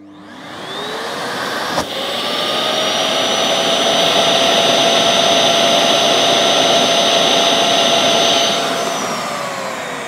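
Makita DVC150L vacuum cleaner running on mains power: its motor spins up to a steady whine with rushing air, with a sharp click about two seconds in, then is switched off near the end and winds down in falling pitch. A vacuum gauge is held over the hose inlet to measure suction.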